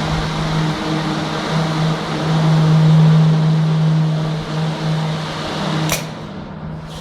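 A steady electric motor hum with rushing air, like a blower running flat out, that stops with a sharp click about six seconds in.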